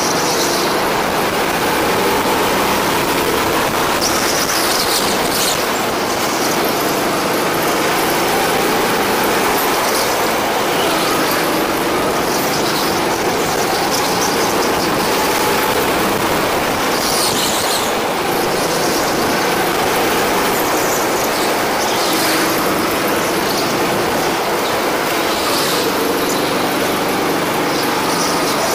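Go-kart engine running at speed on track, its pitch wavering as it speeds up and slows down, with brief high-pitched squeals every few seconds.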